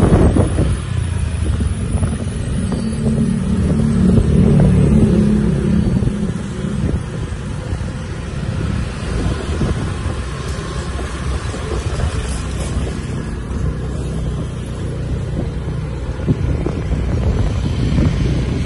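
Motor scooter engine running while riding along a road, mixed with wind buffeting the microphone. The engine hum is strongest a few seconds in, then settles to a steady low drone.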